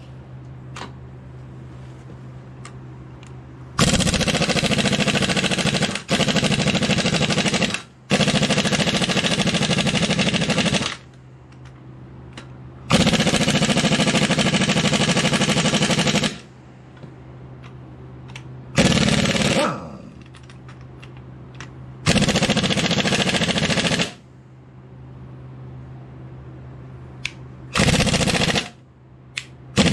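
Impact wrench hammering in repeated bursts, about eight of them lasting from under a second to about three seconds each, as it works the flywheel bolts loose on a Ford 545A backhoe engine. A steady low hum carries on between the bursts.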